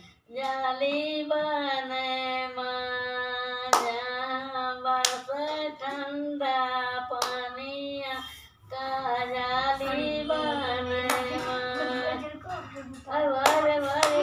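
An elderly woman singing a song with long held notes, clapping her hands every few seconds along with it. The singing breaks off briefly just after the start and again about eight seconds in.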